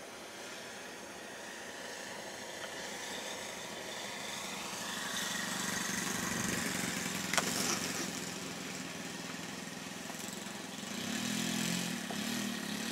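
Cessna light aircraft's piston engine running at low power, a steady drone that swells a little midway, with a single sharp click about seven seconds in and a low pulsing hum near the end.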